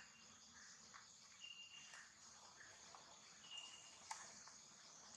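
Faint outdoor insect drone, a steady high buzzing of crickets or similar insects, with a short high note recurring about every two seconds and a few soft chirps.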